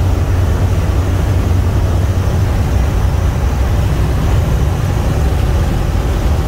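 Inside the cab of a Freightliner Columbia semi truck cruising steadily at highway speed: its Detroit Diesel 12.7-litre inline-six, tuned to 500 hp, runs with an even low drone at about 1,600 rpm, under steady road and wind noise.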